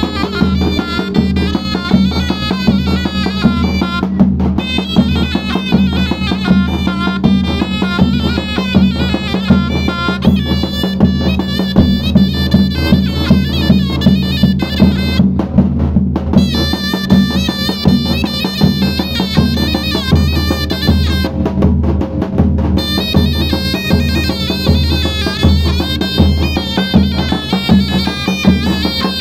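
Live davul and zurna: a shrill double-reed zurna plays a fast, heavily ornamented Turkish folk melody over the steady beat of a large davul bass drum.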